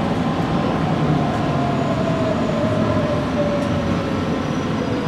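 Interior of a JR Kyushu 817 series 3000 electric train: the whine of its Hitachi IGBT-VVVF inverter and traction motors falls slowly in pitch as the train slows, over a steady rumble of the wheels on the rails.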